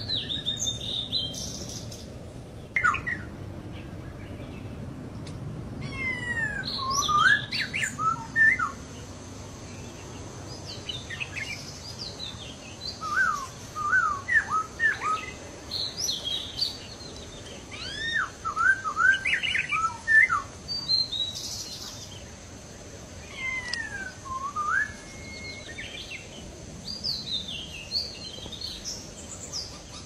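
Laughingthrushes calling: clusters of quick whistled notes and chirps that sweep up and down in pitch, coming every few seconds with short pauses between.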